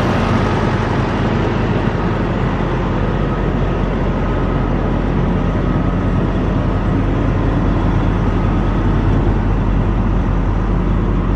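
Diesel engine of a parked semi truck idling, a steady low drone, described as so loud up front.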